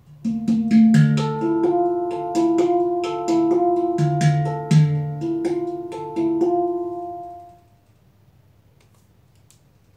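Guitar music played through Monitor Audio Studio 2 loudspeakers driven by an Arcam Alpha 8 amplifier, heard in the room: a run of plucked notes that rings out and dies away about seven and a half seconds in.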